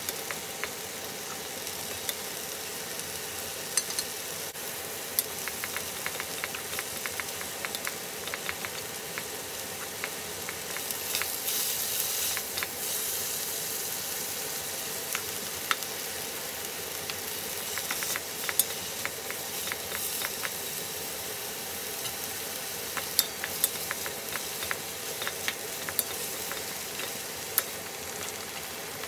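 Sliced beef, onion and green chili peppers sizzling in a nonstick pan while a wooden spatula stirs them, with frequent sharp taps and scrapes of the spatula on the pan. The sizzle swells briefly about twelve seconds in, over a steady low hum.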